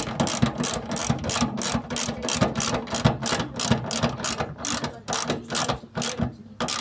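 Socket ratchet clicking in quick repeated strokes, about three a second, while tightening the nuts of a fuel pump mounting flange on a petrol tank; the clicking stops near the end.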